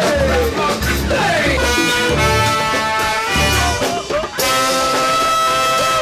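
Live ska band playing, a horn section of saxophones and trombone over a pulsing electric bass line. Sliding notes in the first two seconds give way to held horn chords, with a brief break about four seconds in.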